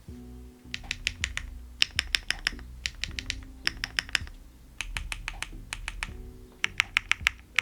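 Typing on a Neo Ergo split mechanical keyboard with HMX Yogurt switches, a PC plate and case foam, in four quick bursts of rapid key clicks with short pauses between them. Background music plays underneath.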